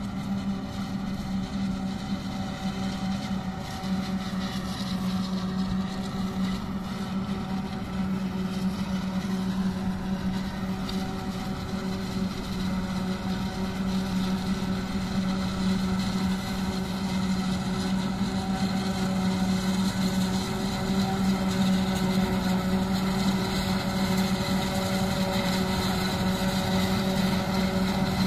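Forage harvester and tractor running together at work: a steady mechanical drone with a constant low hum, growing gradually louder as the machines come closer.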